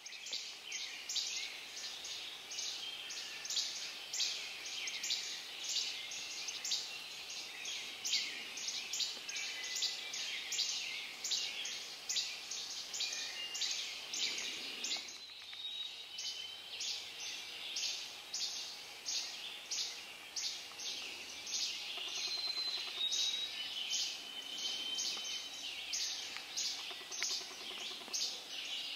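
Dawn chorus of songbirds: many birds singing over one another in a dense, even run of quick high notes, with a few clear whistled notes standing out about two-thirds of the way in.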